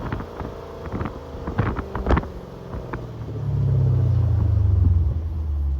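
Dodge Challenger Scat Pack's 392 Hemi V8 with gutted catalytic converters, heard from outside the car: a few short pops in the first couple of seconds, then the engine rises into a loud, deep steady drone about three seconds in and eases off near the end.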